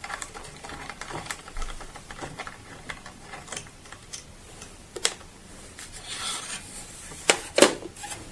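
Handling noise from removing a paper roll from a small printer: light rustling and small plastic clicks, with a brief rustle of paper and a few sharp clicks near the end.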